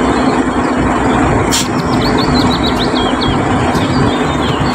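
Concrete mixer truck's engine running steadily with a low hum while the truck unloads at its chute. Birds chirp from about a second and a half in, with a sharp click at the same moment.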